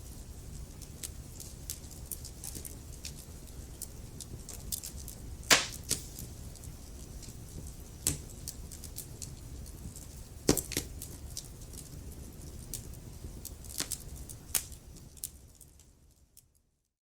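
Wood fire in a fireplace crackling, with irregular sharp pops over a low steady rumble of flames; two pops, about five and ten seconds in, are the loudest. The sound fades out to silence near the end.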